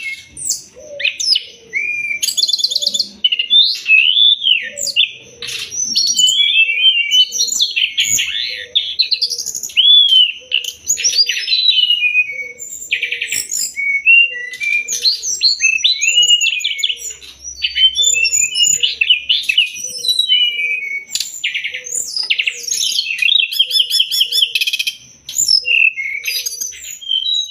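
Brown-chested jungle flycatcher (SRDC) song: a continuous, varied run of whistled phrases, rapid trills and chattering notes, used as tutor song for training caged birds.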